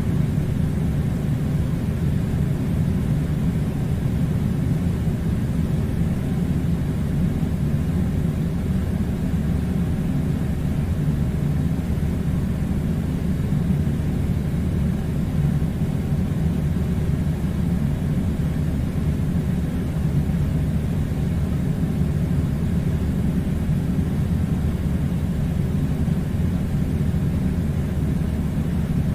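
Air conditioner running: a steady, even low rumble with no change.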